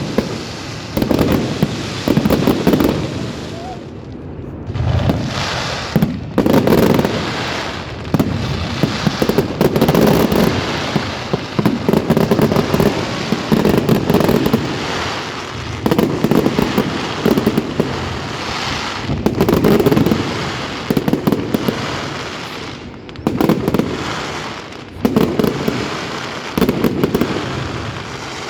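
Fireworks display going off in rapid rolling volleys of bangs and crackling, with short lulls about four seconds in and again past twenty seconds.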